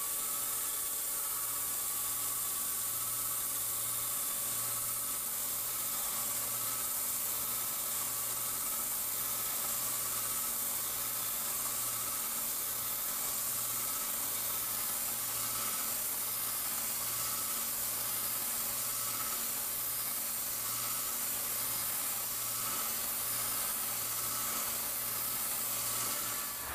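Dijet QM MAX G2 high-feed face mill with double-sided inserts cutting 1.2379 tool steel by helical interpolation on a vertical machining centre. It makes a steady, high, rushing cutting noise over a low hum, with no change in level.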